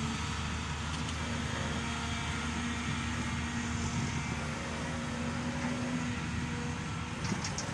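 Caterpillar hydraulic excavator's diesel engine running steadily. A higher steady tone joins about two seconds in and drops away near the end.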